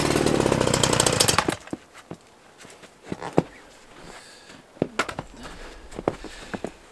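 Petrol chainsaw's two-stroke engine running, then cutting out abruptly about a second and a half in, followed by a few scattered clicks and knocks as the saw is handled. The saw runs 'sort of, but not the way it's supposed to', and the owner thinks its RPMs are the problem.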